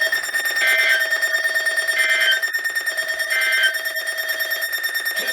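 Three short bursts of NOAA Weather Radio SAME digital data, each a rapid two-tone warble, about 1.3 s apart, over a continuous electronic tone. Bursts like these just after a warning are typical of the end-of-message code.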